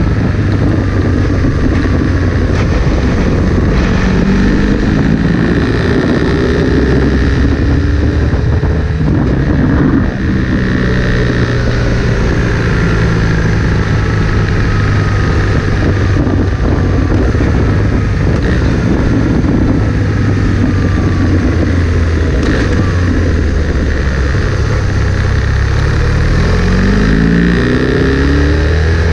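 Motorcycle engine running under way with wind rushing past, heard from on the bike. The revs rise and fall as the rider works through the bends, climbing again near the end.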